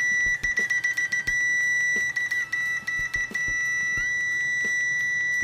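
Digital multimeter's continuity buzzer sounding with the test probes shorted: a loud, steady high-pitched beep. It flickers off and on a few times in the first half, as the probe contact breaks, then holds steady until it stops at the end.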